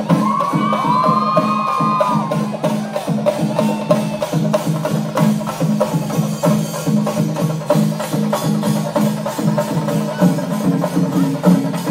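Chenda drums played in a fast, steady, driving rhythm of sharp stick strikes. High whistles from the crowd sound over them in the first two seconds.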